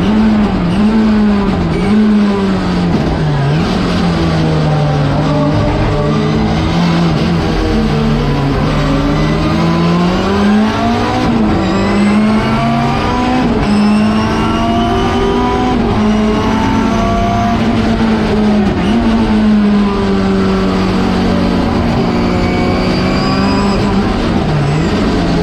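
Turbocharged four-cylinder engine of a Schnitzer BMW 320 Turbo Group 5 race car, heard from inside the cockpit at racing speed. Its pitch climbs through the gears and drops sharply at each shift, with deeper dips under braking.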